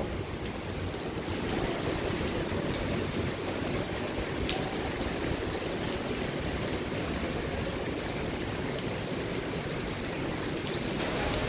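Heavy typhoon rain falling steadily.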